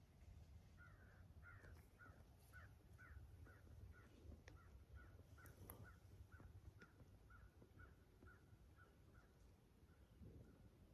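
Faint series of short animal calls, repeated evenly about two to three times a second, starting about a second in and keeping on steadily.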